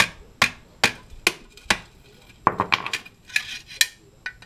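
A hammer pounding a steel bar down into a clogged catalytic converter to break up its core, five sharp blows at about two a second. From about two and a half seconds in, the hammering gives way to irregular rattling and scraping as the bar is worked inside the converter shell by hand.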